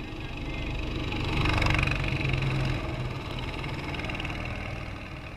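Go-kart engines running as a group of karts passes close by, growing louder to a peak about a second and a half in, then fading as they pull away.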